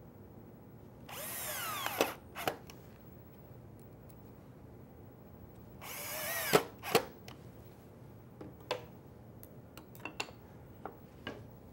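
Cordless drill run in two short bursts, about a second each, its motor pitch dropping as it comes under load, each burst ending in a sharp knock, followed by small knocks of handling.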